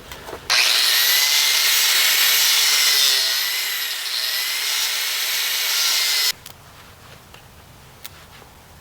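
Power cutting tool cutting through the clips and fittings on scrap copper pipe: a loud, hissy high whine that wavers slightly in pitch. It starts abruptly about half a second in and cuts off sharply about six seconds in.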